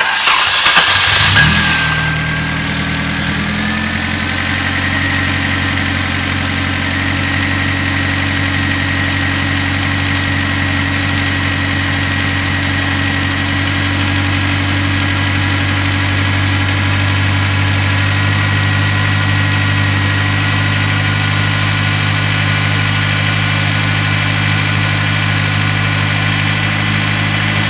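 Hyundai 1.5 CRDi D3EA three-cylinder common-rail diesel being started: it catches at once with a loud burst, its revs settle over the next couple of seconds, and it then idles steadily.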